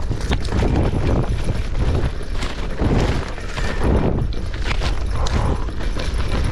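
Mountain bike rolling fast down a rough dirt singletrack: tyres running over dirt and stones with the bike rattling and knocking at every bump, over a steady low rumble.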